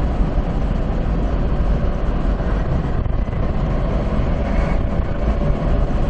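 Steady road and engine noise inside a moving vehicle, loud and heaviest in the low end, with an even hiss above it.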